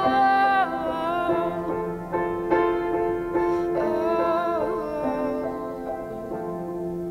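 A woman singing long held notes that slide and waver in pitch, over her own piano accompaniment.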